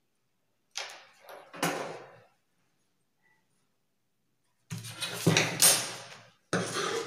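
Handling noise on a table: a large sheet of paper pattern being shifted and smoothed by hand while a steel ruler and scissors are moved about. It comes as a short double rustle about a second in, then two longer bursts of rustling with sharp knocks near the end.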